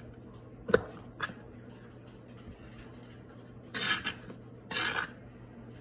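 Kitchen knife slicing sausage on a cutting board: a sharp knock of the blade on the board less than a second in, a lighter one just after, then two short noisy cutting strokes near the end.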